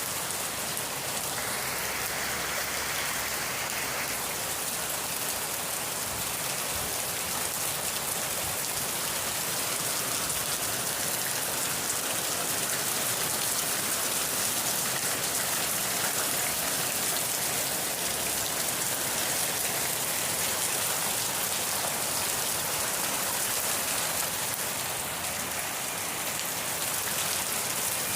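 Steady rain falling, an even hiss of drops on a surface that keeps up without a break.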